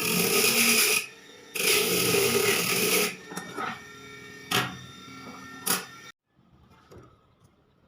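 A power tool grinding steel in two long passes with a short break between, then a couple of sharp knocks, and then it goes quiet.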